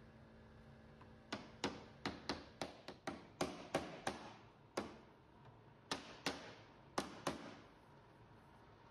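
Small brass-headed hammer lightly tapping notched walnut strips down into the interlocking lattice of a grate, about fifteen sharp taps in irregular bursts that stop a couple of seconds before the end.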